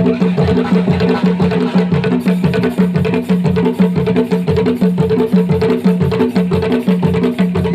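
African dance music driven by drums, with a fast, steady, evenly repeating beat over a low repeating pitched figure.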